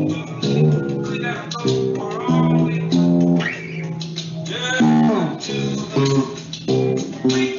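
Electric bass guitar played as a melodic solo line, notes changing several times a second with a few slides between them.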